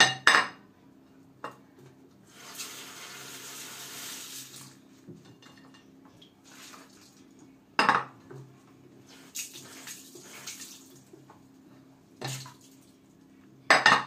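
Dishes being washed by hand in a kitchen sink: plates and crockery clinking and knocking against each other and the sink several times, with a couple of seconds of steady washing noise about two to five seconds in.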